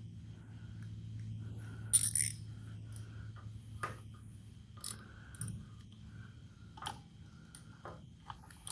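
Sharp metallic clinks and clicks of tools and metal parts being handled on the bandsaw, a few seconds apart, the loudest cluster about two seconds in. A low steady hum underneath fades out about five and a half seconds in.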